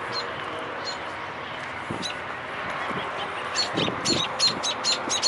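Small bird giving short, sharp, high call notes, a few at first and then about three a second and louder in the second half.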